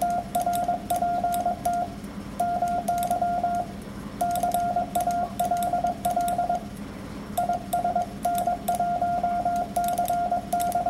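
Morse code (CW) sidetone from a ham radio transceiver, keyed at about 22 words per minute: a single steady beep switched on and off in dots and dashes, in groups with short pauses between words, with sharp clicks alongside. It spells out a repeat of the call sign: "RPT MY CALL IS N1CY".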